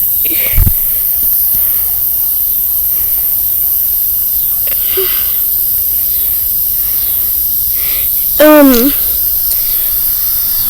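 A steady hiss of outdoor background noise throughout. A soft thump comes just after the start. Near the end there is one short vocal sound from the child that slides down in pitch.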